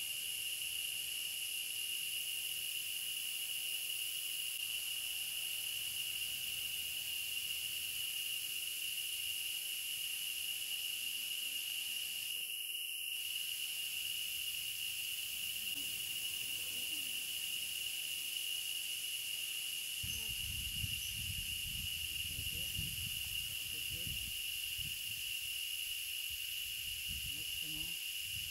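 Steady high-pitched drone of forest insects, one unbroken whine with a hiss above it. Low rustling joins it in the last third.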